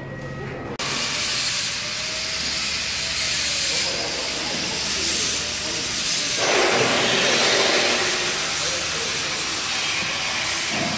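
A loud, steady hiss that starts abruptly about a second in and fills out further around six seconds in.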